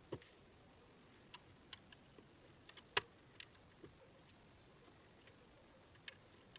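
Scattered light clicks and taps of hand tools and parts being handled while dismantling a scooter engine, with one sharper click about three seconds in.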